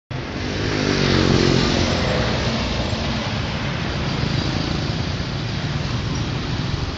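Motor vehicle engine revving up, its pitch rising over the first two seconds, then steady traffic and road noise.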